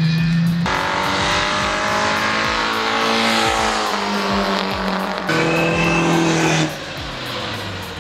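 Engine of a classic racing car passing on the circuit, its note falling in pitch as it goes by, mixed with background music.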